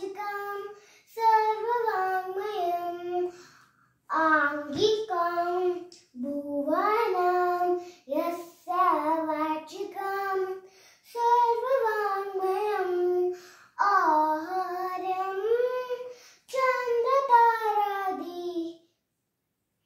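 A young girl singing unaccompanied in short phrases with brief pauses between them, her voice stopping near the end.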